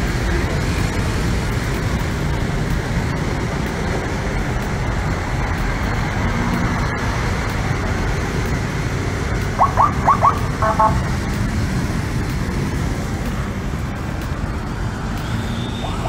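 Steady city-street traffic noise from motorcycles and a bus passing at a crossing. About ten seconds in, a quick run of four short chirping beeps and then a brief horn toot.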